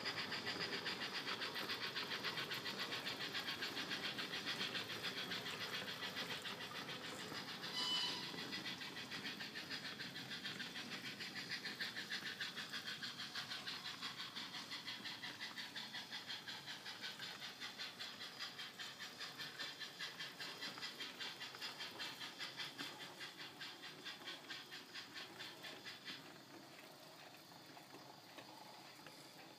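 O gauge model train running on its track: a fast, even rattle of the wagon wheels mixed with the steam chuffing of an ESU LokSound DCC decoder playing an LBSC Terrier tank engine sound. It fades steadily and drops sharply near the end, with a short high squeak about eight seconds in.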